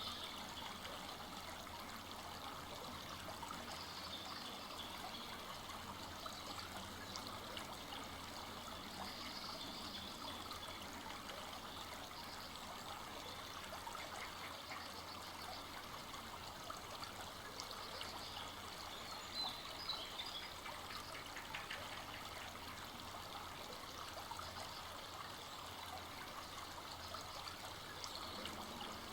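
A full-flowing forest stream running steadily over its bed, with a few brief high chirps over the rush of water.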